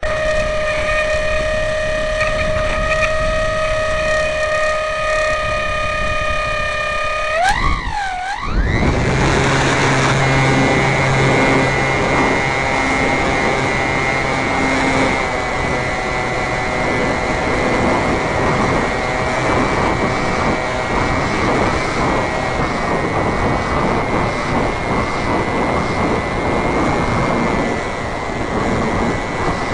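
Motor of a radio-controlled Cessna Cardinal model airplane heard from on board: a steady high whine while it sits on the runway, then about seven seconds in the pitch swoops up and down as the throttle opens. From then on a loud rushing of propeller and wind, with a thin high whine over it, runs through the take-off and climb.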